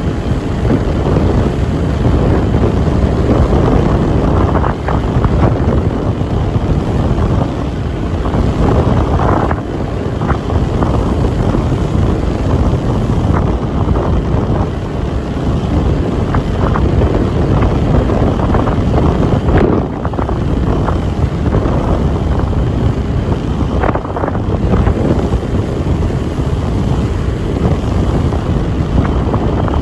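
A ferry under way: the steady drone of its engines mixed with the rush of wind and water, with wind buffeting the microphone.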